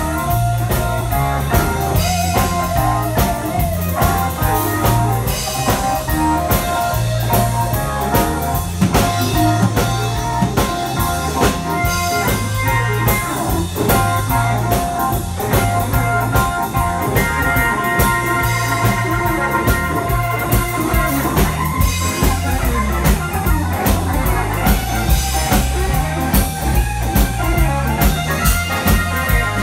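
Live blues band playing: electric guitar, keyboard, bass guitar and drum kit.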